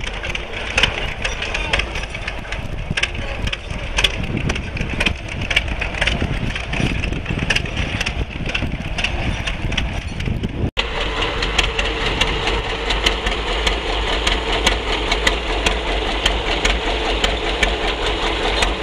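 Antique farm tractor engines running while pulling plows through soil. Irregular knocks and clatter run over the engine for the first ten seconds or so. After a cut, a steadier engine drone takes over.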